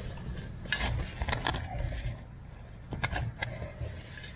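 A shovel digging into soil and wood-chip mulch, with a few short scrapes and crunches over a low rumble.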